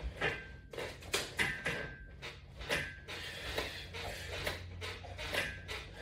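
Resistance-band exercise equipment creaking and knocking through repeated pull-down crunches, with a short squeak roughly every second and a half as the bar is pulled down and released.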